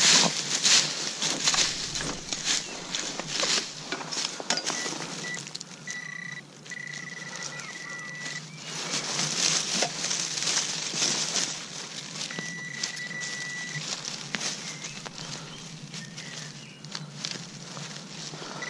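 Rustling and scraping through soil and leaf litter while digging out a target, with a metal detector's steady high-pitched signal tone sounding in three stretches: about five seconds in for some three seconds, briefly around twelve seconds, and again at the very end. The target it is sounding on turns out to be a corroded shell casing.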